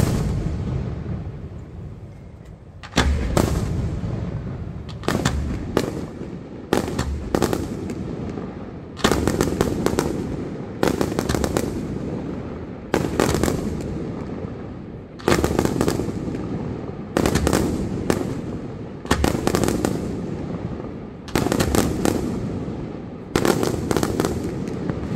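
Aerial firework shells bursting in a steady sequence, about one every two seconds. Each is a sharp bang with a few quick cracks and a rumbling tail that dies away before the next.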